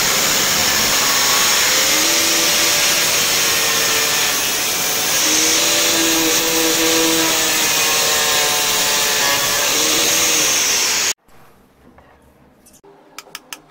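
Angle grinder with an abrasive cutting disc cutting into a DC motor's metal housing, running steadily, its pitch dipping and recovering as the disc bites. It stops abruptly about eleven seconds in, followed near the end by a few faint sharp taps.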